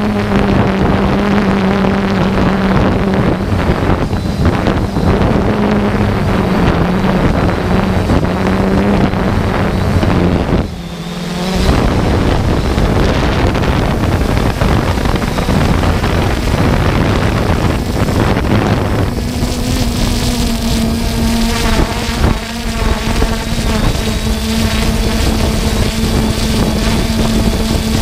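3DR Solo quadcopter's motors and propellers humming steadily in flight, heard from the camera on board, with wind rushing over the microphone. The level dips briefly a little under halfway through, and the hum steps up slightly in pitch about two-thirds of the way in.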